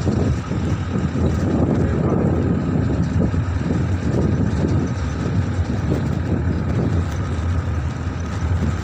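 Steady engine and road noise of a utility vehicle driving along a rough dirt track, heard from the back of the moving vehicle.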